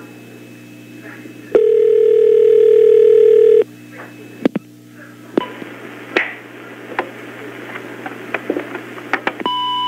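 Telephone call ringing through: a two-second ringback tone on the line over a steady hum, then a series of clicks as the answering machine picks up, and a short beep from the machine near the end.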